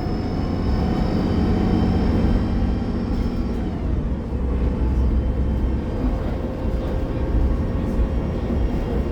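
A 2015 Gillig Low Floor CNG transit bus underway, heard from inside the cabin: its Cummins Westport ISL G engine and Voith transmission give a steady low rumble with thin whining tones. About three and a half seconds in, the higher whine tones fade away and a lower steady tone carries on.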